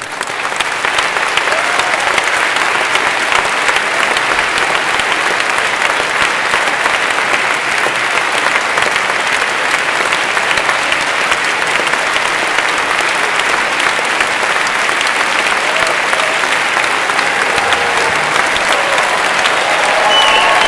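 Large hall audience applauding loudly and without a break, a standing ovation at the end of a speech, swelling up within the first second.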